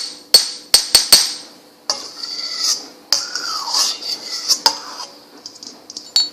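Fingernails tapping on a small hard kitchen object: a few sharp clinking taps that ring briefly, then two spells of scraping and rubbing with a faint squeak, and a few light taps near the end.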